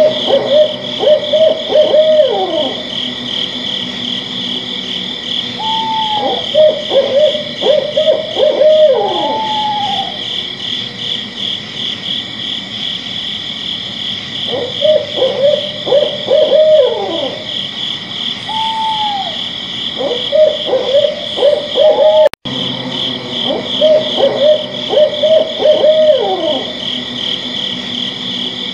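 An owl hooting in runs of quick hoots, each run ending in a falling note, with a higher rising-and-falling call between runs. A steady, high, pulsing chorus of night insects sounds underneath.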